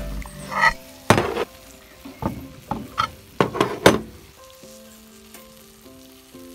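Chicken thighs in a hot cast-iron sizzler pan sizzling in their juices, with several sharp pops and spits over the first four seconds. Light background music comes in about halfway.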